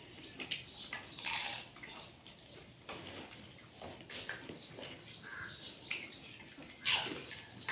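Pani puri being eaten fast: crisp puri shells crunching and the spiced water being slurped in the mouth, in scattered bursts, loudest about seven seconds in.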